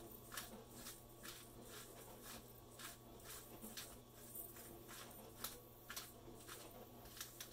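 Hand-twisted pepper grinder grinding peppercorns: faint, repeated gritty clicks at about three a second, over a low steady hum.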